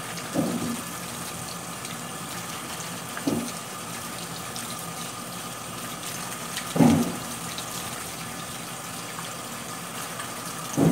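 Kitchen faucet running steadily into a sink while green citrus fruit is washed by hand under the stream. A short low thud comes about every three to four seconds as the fruit is handled in the sink.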